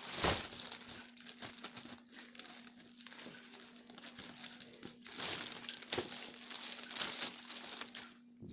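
Packaging of a karaoke speaker crinkling and rustling as it is handled and opened, with a sharp knock right at the start and the rustling getting louder in the second half. A faint steady hum underneath.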